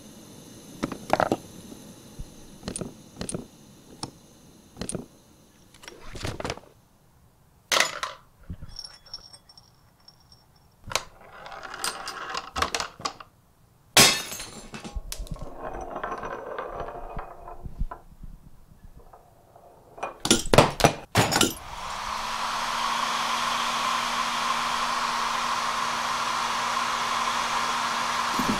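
A household-object chain-reaction machine at work: a string of separate clicks, knocks, clinks and short rattles as small parts fall, roll and strike. About three-quarters of the way in, a hair dryer switches on and runs with a steady whir.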